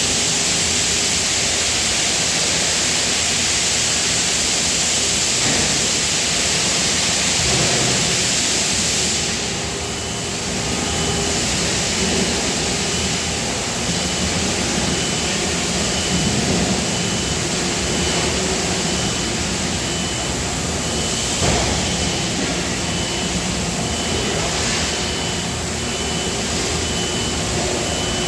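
Loud, steady factory machinery noise around a die casting machine. A strong hiss for about the first nine seconds gives way to a lower running hum, with a faint high beep repeating quickly through the rest.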